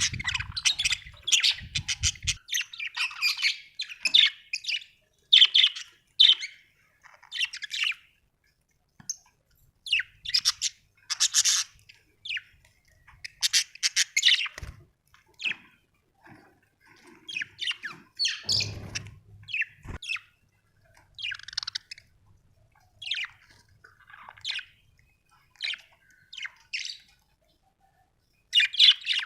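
Budgerigars chirping and warbling in short, quick bursts with brief pauses, mixed with occasional harsher squawks.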